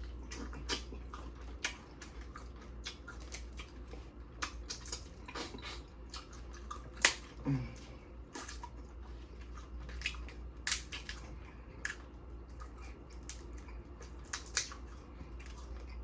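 Dungeness crab shells being cracked and picked apart while eating, making irregular sharp cracks and clicks, the loudest about seven seconds in, over a low steady hum.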